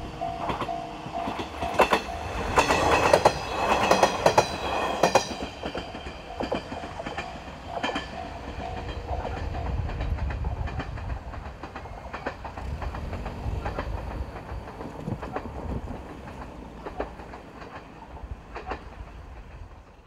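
Two-car KiHa 110 series diesel railcar passing over a level crossing: its wheels clatter over the rail joints, loudest two to five seconds in, while the crossing's alarm bell rings and stops about six seconds in. The train's running rumble then fades away, with a car driving across the crossing around the middle.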